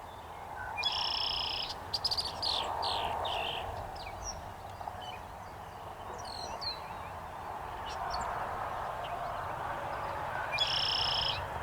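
Male red-winged blackbird singing its conk-la-ree song twice, about a second in and again near the end. Each song is a short lead-in note followed by a buzzy trill, with shorter chirps scattered in between over steady background noise.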